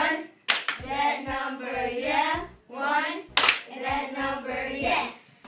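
A voice chanting a rhyme in a sing-song way, with sharp hand claps about half a second in and again about three and a half seconds in.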